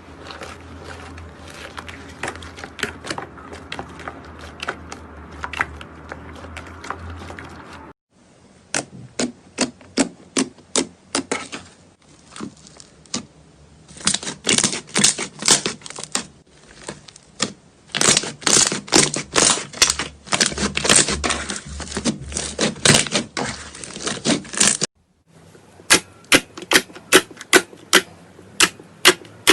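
Slime being squeezed and poked by hand, giving rapid crackling clicks and pops of trapped air. The sound breaks off abruptly twice as the footage cuts to a new clip, and near the end the clicks come loud and regular, about three a second.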